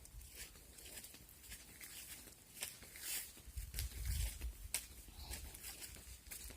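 Light pattering and rustling of movement on the ground, with scattered sharp clicks and a low rumble on the microphone about three and a half seconds in.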